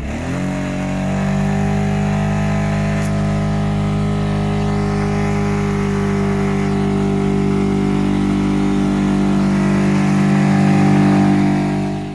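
UTV engine running at steady, fairly high revs as it drives up the boat ramp out of the water, the note settling within the first half second and then holding level. It cuts off suddenly at the end.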